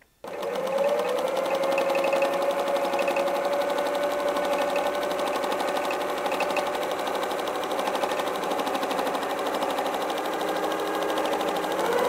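Electric sewing machine starting up and then running steadily at speed. It stitches free-motion through a quilt sandwich, a motor hum with rapid needle strokes. The pitch climbs briefly as it gets going and then holds steady.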